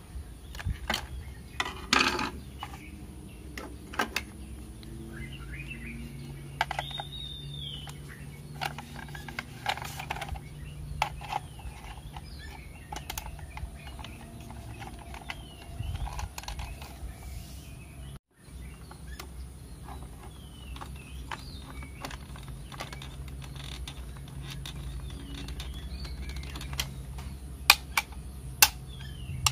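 Scattered clicks and knocks of a screwdriver and hard plastic parts as a battery-operated toy cow is unscrewed and taken apart. Small birds chirp now and then in the background over a low steady hum.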